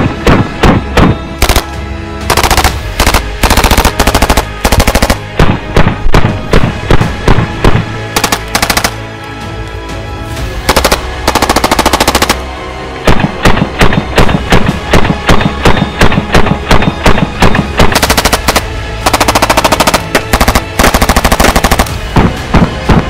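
Thompson submachine gun firing on full auto in short bursts, with quieter pauses between them and a longer lull in the middle.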